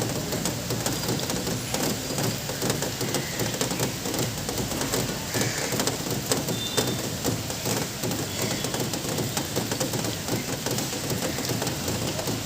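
Heavy rain falling steadily, a dense patter of drops hitting surfaces, with a few short, faint high bird chirps here and there.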